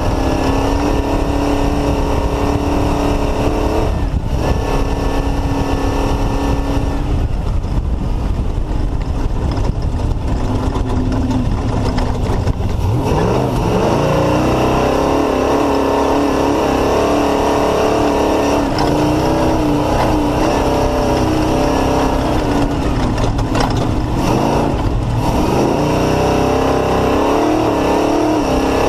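Off-road race car's engine running hard at high revs, its pitch shifting several times and falling then climbing again about halfway through and past two-thirds, over a constant rough low noise.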